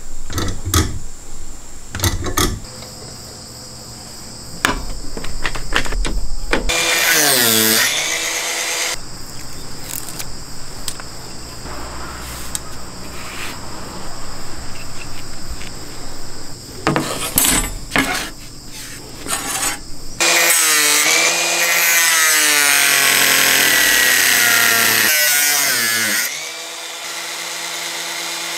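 Cordless angle grinder with a cutting disc: a few clicks and knocks of handling, a short run of the motor that winds up and falls away, then about six seconds of the motor running and cutting into a wooden board before it winds down near the end.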